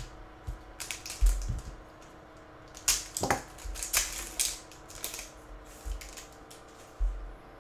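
A foil trading-card pack, a 2022 Rookies and Stars football hobby pack, being crinkled and torn open by hand: a string of sharp crackles and rips, with a few dull knocks of handling.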